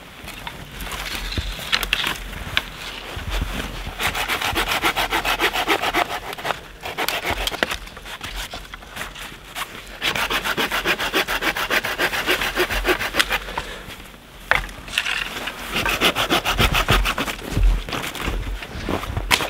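Hand saw cutting through dry dead branches for firewood: quick rhythmic rasping strokes in three long runs, with short pauses between them.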